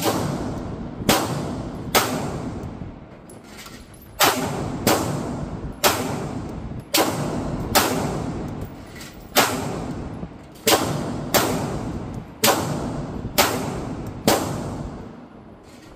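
9mm semi-automatic pistol fired in a steady string of about fourteen shots, roughly one a second at uneven intervals. Each crack rings on with a long echo off the concrete walls of an indoor range.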